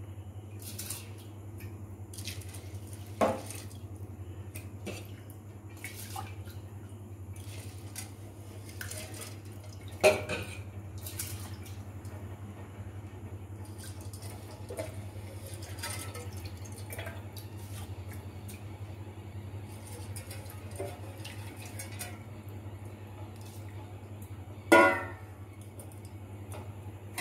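Stainless steel bowl and pot clanking against each other as soaked rice is tipped into a steel handi of hot water: three sharp clanks, the last and loudest ringing briefly near the end, with soft water sounds and small knocks between. A steady low hum runs underneath.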